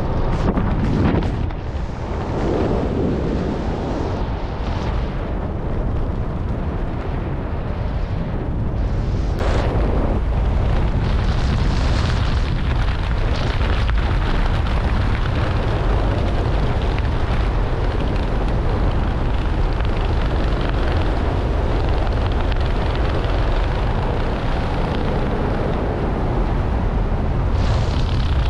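Wind rushing over a skydiver's camera microphone during the parachute descent under an open canopy: a steady, low rushing noise, more uneven in the first couple of seconds.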